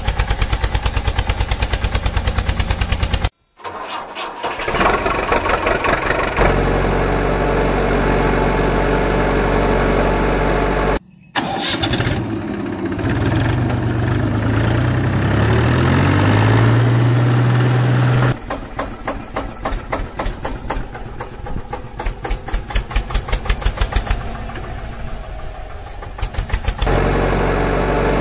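Tractor engine sound effects spliced together: an engine starting and running with a fast, even knock, cutting off and changing abruptly several times.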